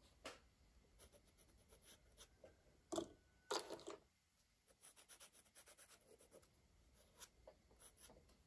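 Crayon scratching on paper in quick short strokes, with two louder scrapes about three seconds in.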